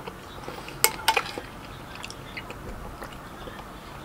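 Small clinks and taps of eating utensils and food containers being handled, with a few sharp clicks close together about a second in.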